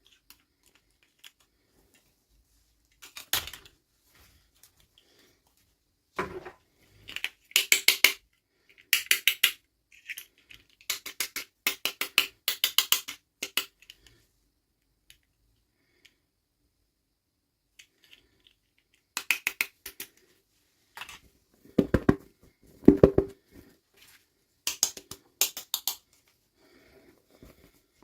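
Small hard plastic toy pieces clicking and clattering as they are handled, in irregular bursts of quick clicks with short pauses between.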